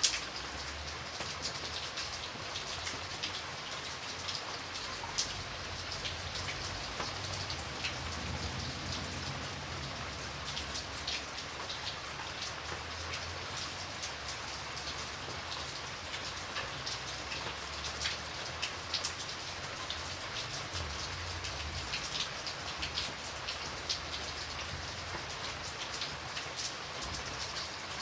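Light rain falling steadily, with many small drops ticking on a surface over a soft continuous hiss and a faint low rumble underneath.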